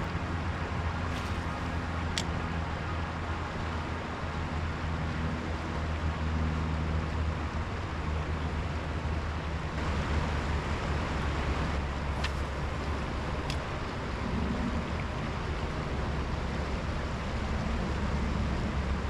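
River water rushing steadily, with a low rumble underneath and a few faint clicks.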